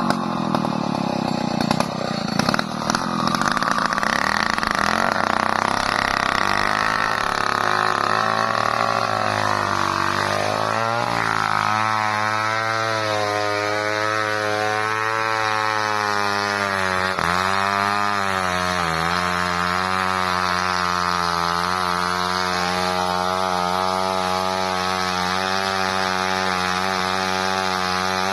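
Two-stroke chainsaw engine running continuously, its pitch wavering and dipping briefly a few times. The first ten seconds or so carry a harsher, noisier edge.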